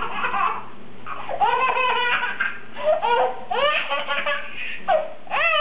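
A baby laughing hard: several high-pitched bouts of laughter with short breaths between them.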